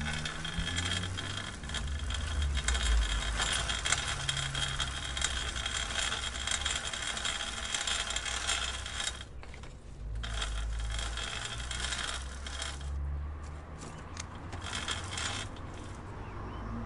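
Bicycle chain and drivetrain clicking and rattling in quick succession over a low rumble. The clicking drops out briefly about nine seconds in, then turns sparser over the last few seconds.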